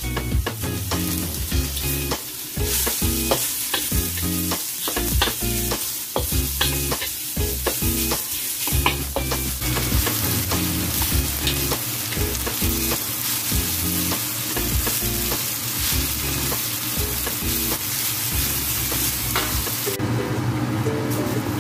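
Chopped mushrooms and pak choy sizzling as they are stir-fried in a hot wok, with a wooden spatula scraping and knocking against the pan. The sizzle drops off near the end.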